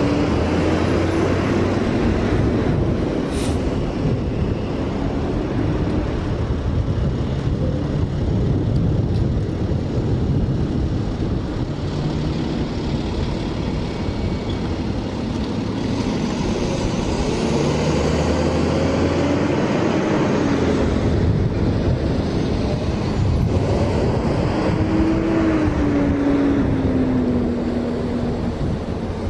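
Engine running under a loud rushing noise, its pitch rising and falling several times, with a single sharp click a few seconds in.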